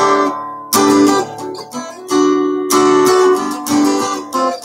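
Steel-string acoustic guitar amplified through a Fishman Blackstack soundhole pickup and acoustic guitar amp, strummed in a run of about six chords, each left to ring.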